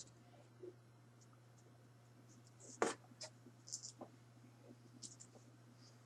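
Faint clicks and scrapes of a plastic action figure being handled and turned, with one sharper click about three seconds in, over a steady low electrical hum.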